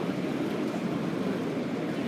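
Steady low, even din of an airport terminal departure lobby, with no single event standing out.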